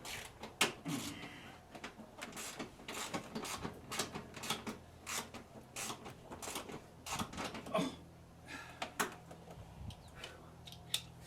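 Irregular clicks and knocks of hand tools and fasteners being worked on a car's front end. A low steady hum joins about eight seconds in.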